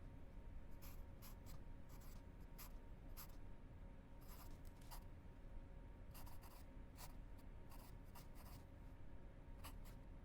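Near silence: room tone with a faint steady hum and a scatter of short, faint scratchy rustles.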